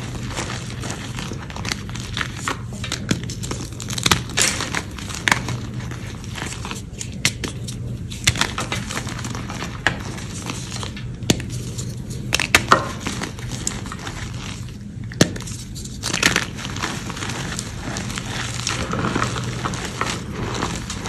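Gym chalk crushed and crumbled by hand in a tray of chalk powder: dry, grainy crunching and crackling, with irregular sharper crunches as lumps break between the fingers.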